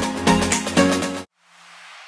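Background music with a steady beat that cuts off suddenly about a second in, followed by a faint hiss.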